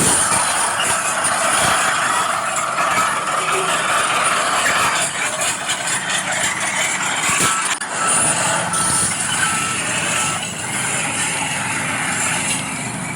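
Radio-controlled scale earthmoving machines working, with a steady truck-like engine noise and hiss. For about three seconds past the middle, a reversing alarm gives a run of short, evenly spaced beeps.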